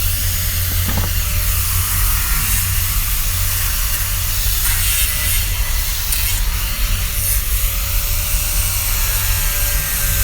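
Handheld power grinder running steadily as it grinds and carves into the wood of a stool, a continuous motor hum with the rasp of wood being worn away.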